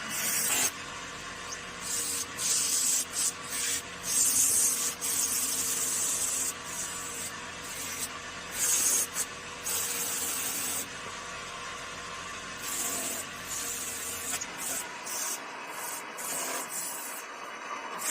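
Hand sanding on wood: irregular strokes of sandpaper rubbing, each lasting from a fraction of a second to about a second, with short pauses between them.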